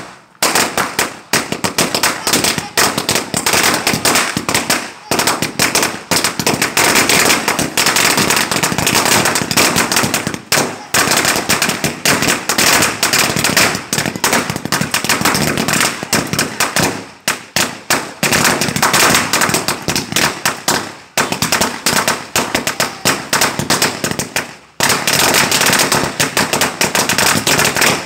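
A 1000-wala string of firecrackers going off: a long, rapid, unbroken crackle of small bangs, with a few brief lulls.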